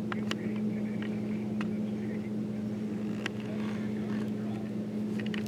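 A steady low mechanical hum, like a motor running, with faint high chirps and a few sharp ticks over it.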